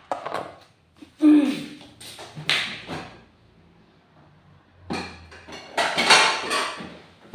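A few separate knocks and clatters of a kitchen knife on a plastic cutting board while bottle gourd is sliced and the knife is set down; the loudest come about a second in and in a cluster near the end.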